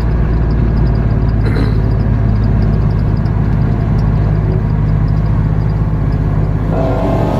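Engine idling steadily with a low, even note; near the end a higher engine note comes in and holds.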